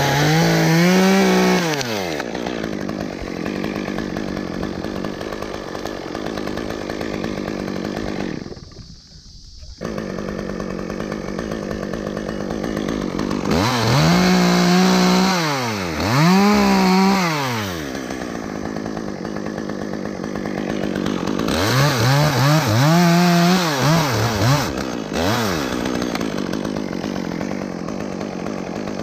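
Chainsaw running, throttled up in three bursts with the pitch rising and falling each time, and running more steadily in between.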